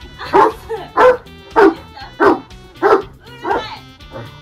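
A dog barking in a steady run of six barks, a little over half a second apart, over background music.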